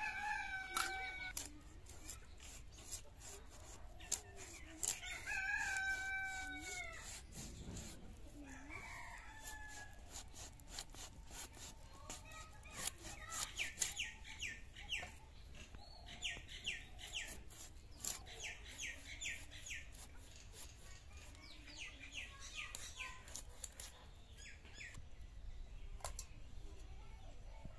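A rooster crows twice early on, the second crow longer, and chickens later call in short repeated notes. Through it all come sharp clicks and scrapes as a fish is scaled and cut on a bonti, an upright blade fixed in a wooden base.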